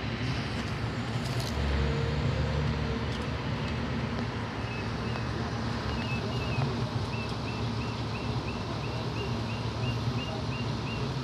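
Delivery truck's engine idling with a steady low rumble. From about halfway in, a bird chirps in a quick even series, about three chirps a second.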